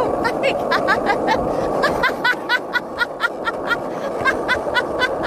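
Skateboard wheels rolling on pavement, with a rapid series of short, high, rising chirps over the rolling.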